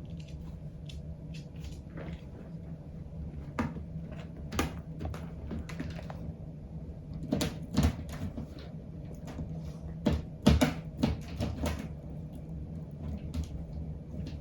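A small dog playing inside its crate: irregular knocks and clatters, with louder clusters about halfway through and again a few seconds later, over a steady low hum.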